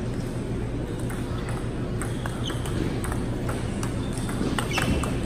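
Table tennis ball ticking off the rackets and the table in a rally, a sharp click every fraction of a second and coming more often toward the end, over a steady low hum.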